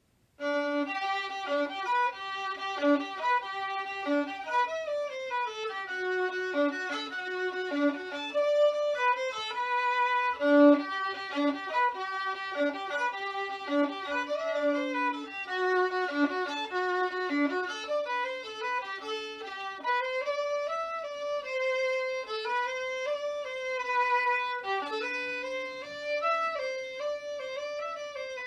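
Solo violin, bowed, playing a waltz melody with a distinctly Polish flavour: a single line of quick, changing notes, moving between low and high registers.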